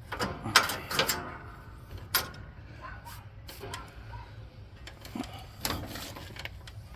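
Sharp metal clinks and knocks, the loudest about half a second and a second in with a short ringing after them, as a spring is stretched with a spring puller and hooked into place on the lawn tractor.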